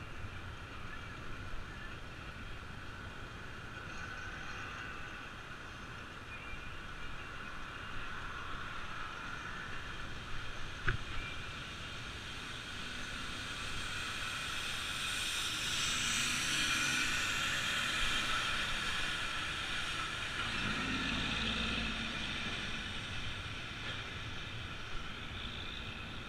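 Street sound heard from a moving bicycle: steady wind and road noise, with passing traffic that swells to its loudest a little past halfway and a low rumble about three-quarters through. A single sharp click about eleven seconds in.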